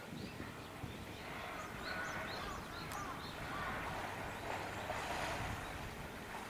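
Small birds chirping in short, repeated calls over steady background noise, with faint voices.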